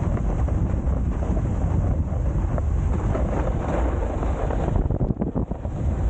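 Wind buffeting the microphone over the scrape of a snowboard sliding down hard, icy snow. From about five seconds in, the sound turns into a quick run of chattering knocks as the board skips over the ice.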